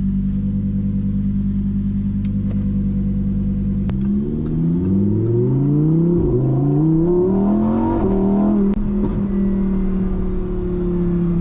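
A truck engine running steadily, then revving up about four seconds in, rising in pitch several times and dropping back each time, like pulling through the gears, before settling to a steady run again near the end.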